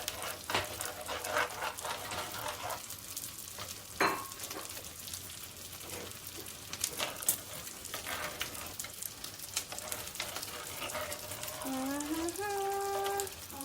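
Instant soup being stirred in a hot pot on the stove: a steady sizzling hiss with scattered clicks of the utensil against the pot. Near the end a short rising, then held, hummed note.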